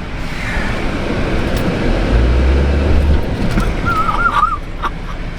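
Car on the move: engine, wind and road noise fill the sound. A deep low rumble swells about two seconds in for about a second, and a short wavering squeal sounds near the end.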